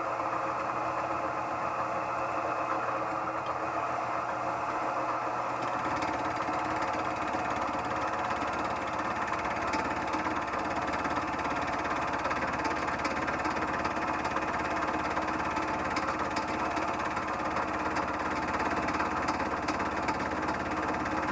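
Harbor Freight mill-drill-lathe running steadily while its fly cutter takes a light pass across a metal part held in the milling vise. A deeper rumble joins about six seconds in and holds, with faint ticking through the rest of the cut.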